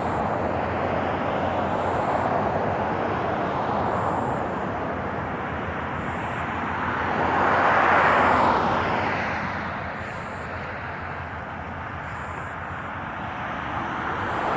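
Road traffic passing: a broad rushing noise that swells and fades as vehicles go by, loudest about eight seconds in, over a faint steady high-pitched tone.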